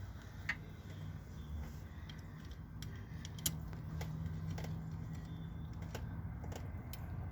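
Small metal parts clicking and tapping as a nut and bracket are fitted by hand onto their studs. The clicks are scattered, with two sharper ones about half a second in and about three and a half seconds in.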